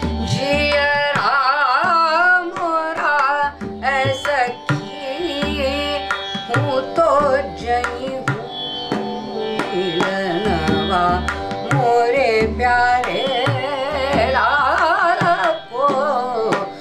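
Woman singing a Hindustani classical bandish in the Gwalior style, with tabla accompaniment. She sings fast rippling wordless runs over a steady drone.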